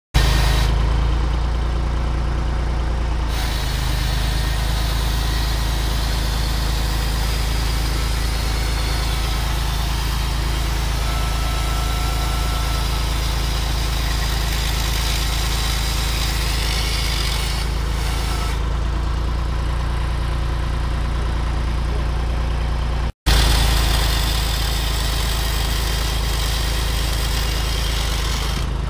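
Tractor engine running steadily at idle, a low constant hum. The sound cuts out for an instant about 23 seconds in.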